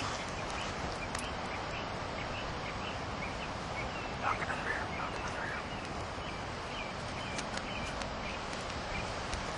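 Steady outdoor background hiss with faint, scattered bird chirps and a few soft clicks, and a brief rustle about four seconds in.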